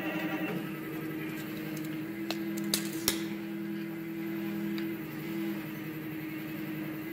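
Stepper motors of a CNC hot-wire foam cutter running, a steady pitched hum that shifts slightly in pitch about five seconds in, with a few light clicks between two and three seconds in.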